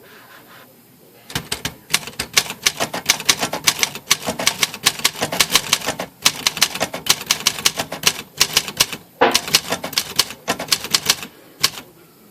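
Olympia SM-9 De Luxe manual portable typewriter being typed on at a quick, steady pace: a dense run of crisp typebar strikes, with brief pauses about six and nine seconds in. The machine has just been cleaned and serviced and types smoothly.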